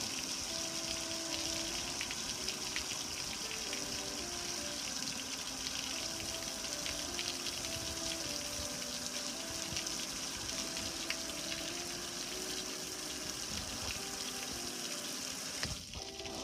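Steady hiss of water spray from a hose-end sprayer hitting a gas grill, with water spattering and dripping off the metal; the spray stops near the end. A simple melody plays quietly underneath.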